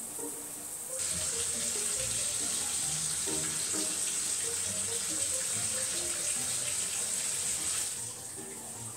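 Water running from a bathroom tap for hair washing, a steady rushing hiss that starts about a second in and stops about eight seconds in.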